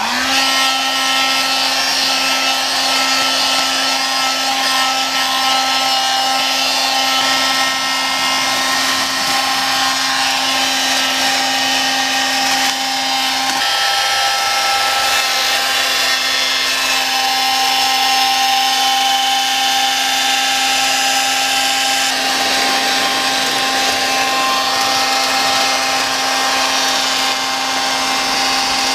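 Handheld electric heat gun running steadily, its fan motor giving a constant hum over a rush of blown air as it warms masking tape on a freshly painted panel.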